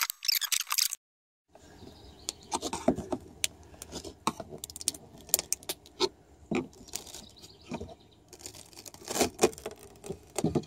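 Scattered clicks, taps and knocks of hand work freeing an old wooden companionway hatch slide from a sailboat's fiberglass cabin top: a tool and loose hardware clicking against wood and fiberglass. The sounds come in small clusters with quieter gaps between, after a short break about a second in.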